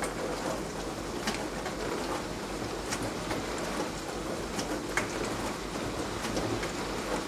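Beko DWD5410W dishwasher in its wash cycle: water spraying and splashing inside the tub, a steady hiss with occasional sharper spatters.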